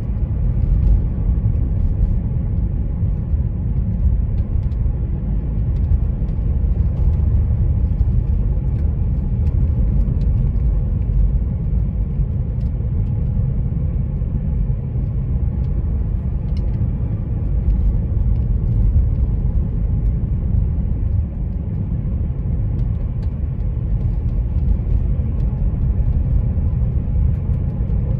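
Driving noise of a car under way: a steady low rumble of tyres and engine that holds even throughout, with no sharp events.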